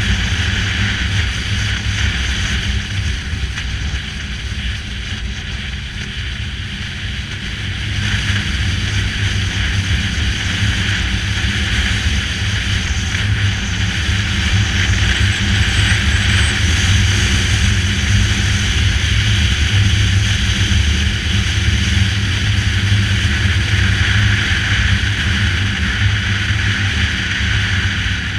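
Motorcycle under way: the engine's steady low rumble under a constant rush of wind noise on the microphone. Both ease off a little for a few seconds, then pick up again about eight seconds in.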